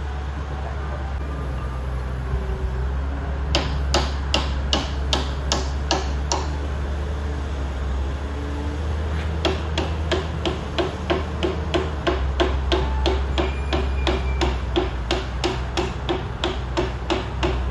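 Hammer blows on steel at a loader lift-arm pivot as a new bushing is tapped into place. Each blow is short with a brief ring: a handful a few seconds in, a pause, then a steady run of about two to three blows a second over a steady low hum.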